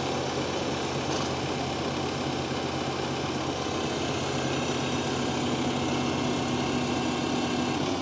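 Bandit Industries SG-75 stump grinder's engine running steadily as the tracked machine drives slowly forward; a steady low hum joins about halfway through.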